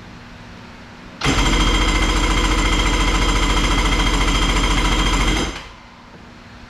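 Freshly rebuilt Kawasaki 750 two-stroke jet-ski engine, bored out to 800, firing up for its first start and running on a rapid, steady beat for about four seconds on primer fuel before it dies. It catches about a second in and cuts out suddenly near the end.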